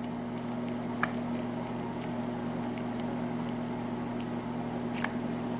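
A small pin-tumbler lock and its key being handled: a few faint metallic clicks and ticks, a sharper one about a second in and another near the end, over a steady low electrical hum.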